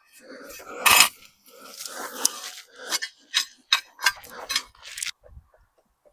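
Spade digging into and scraping through soil, a series of irregular crunching, scraping strokes, the loudest about a second in and a quick run of shorter ones later.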